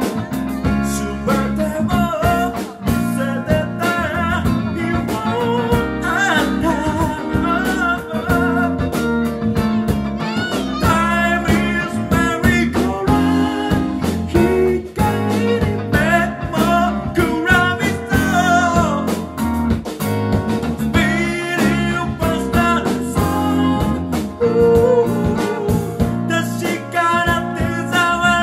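Live band playing: a man singing into a microphone over electric guitars, with a steady beat.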